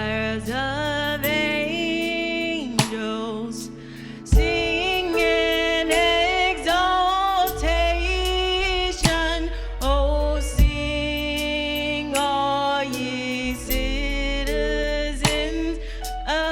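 Worship song: a singer's voice holding long, wavering phrases over instrumental accompaniment with sustained low bass notes and occasional sharp percussive hits.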